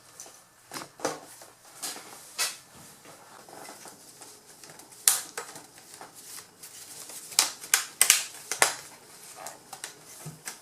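Plastic laptop screen bezel being pressed back onto the lid, with scattered sharp clicks as its clips snap into place. The loudest snaps come about five seconds in and in a cluster around eight seconds in.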